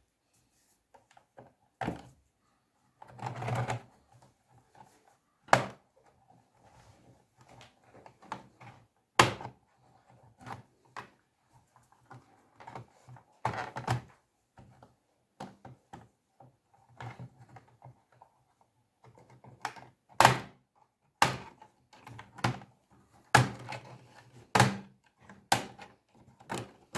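Plastic case of an HP 15-R214NT laptop being pried apart by hand: irregular sharp clicks and snaps as the case's retaining clips let go, with small knocks of plastic being handled.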